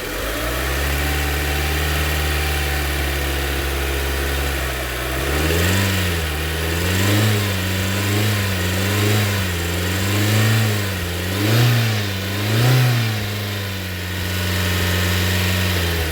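A Kia Sportage's 2.0 16-valve four-cylinder petrol engine, freshly rebuilt with new connecting-rod bearings, idles steadily, then is blipped about seven times in quick succession, each rev rising and falling within about a second, and settles back to idle. The engine runs clean, with the rod-bearing knock gone.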